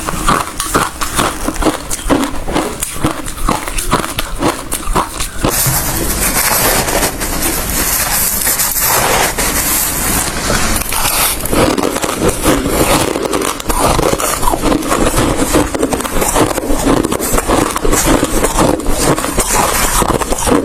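Ice being chewed close to the microphone: loud, dense crunching. It becomes denser and more continuous from about five seconds in.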